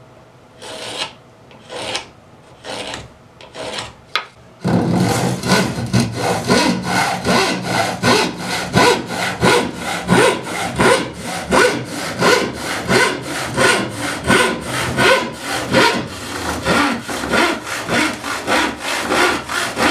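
Handsaw crosscutting a strip of 3/8-inch plywood with steady back-and-forth strokes, about two a second, the teeth rasping through the wood.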